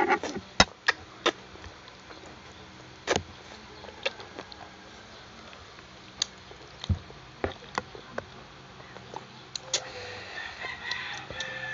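Close-up eating noises: irregular sharp clicks, taps and smacks a second or two apart as pasta is eaten with forks.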